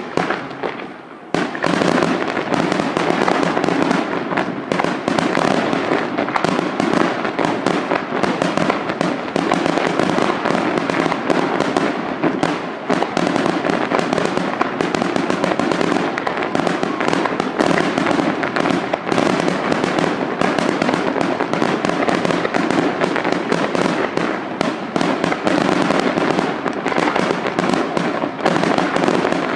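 Aerial fireworks shells bursting in a dense, unbroken barrage of bangs and crackles, which sets in fully about a second in.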